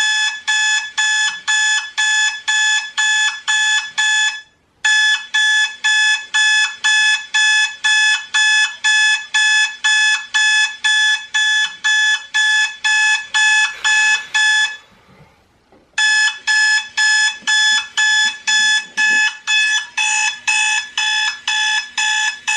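Electronic alarm clock beeping fast and shrill, about two and a half beeps a second, each beep a single pitch with bright overtones. The beeping stops for a moment about four and a half seconds in, and again for about a second some fifteen seconds in, then starts up again.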